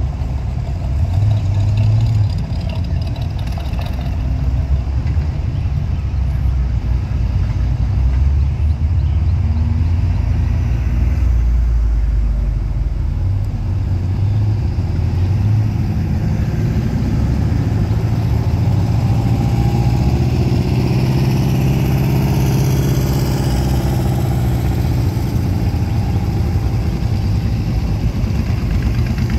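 A procession of vehicles rolling slowly past one after another, among them a lifted Jeep, a pickup, a Ford Mustang and two motorcycles, their engines running at low revs. About twenty seconds in, one engine rises in pitch as it speeds up.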